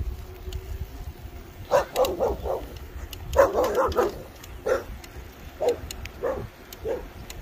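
A dog barking repeatedly. A few barks start about two seconds in, a quick burst of barks comes in the middle, then single barks follow about every half second.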